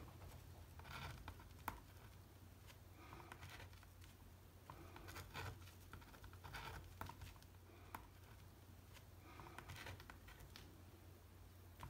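Faint scratchy strokes of a white pastel drawn across textured watercolour paper, coming in short runs of about a second with pauses between, and a couple of light ticks. A steady faint low hum lies underneath.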